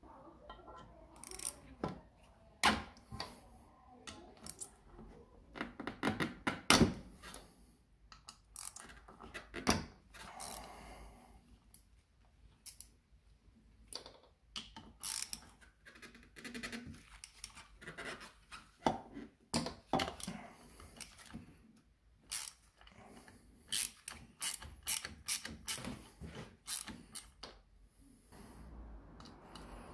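Hand tools at work on a Triumph Bonneville's alternator cover and stator: irregular sharp metallic clicks, taps and scrapes of a screwdriver and fasteners against the metal engine casing.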